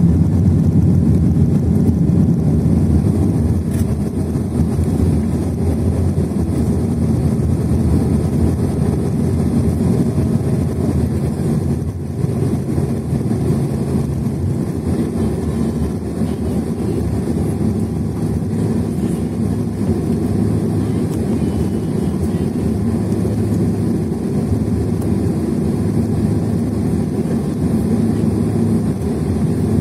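Cabin noise inside a Boeing 767-400 rolling out and slowing on the runway after touchdown, then turning off: a steady low rumble from the wheels and engines, with a faint hum that shifts in pitch about halfway through.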